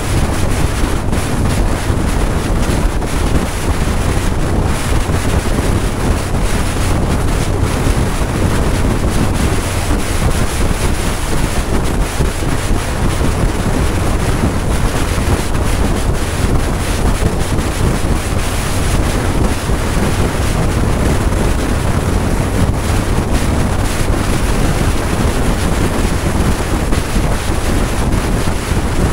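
Steady wind noise buffeting the microphone of a camera on a motorcycle travelling at highway speed, with a low rumble beneath it.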